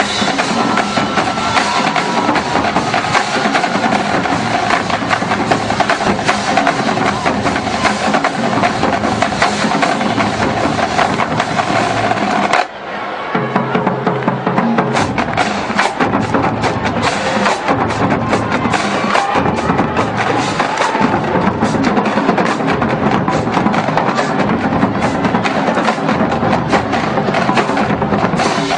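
Marching band drumline playing a percussion cadence on snare drums, tenor drums and bass drums, with a short break about halfway through.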